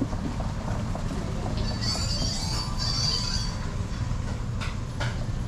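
A high-pitched squeal lasting about two seconds, starting about two seconds in, over a steady low rumble of wind buffeting the microphone.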